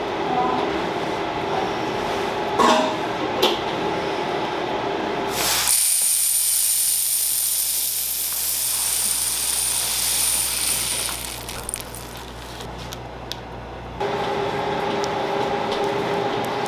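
Tiny nonpareil sugar sprinkles poured into a metal bowl: a dense hissing rattle starts about five seconds in, thins to scattered ticks and stops about fourteen seconds in. Before and after it there is a steady mechanical hum with a few light clicks.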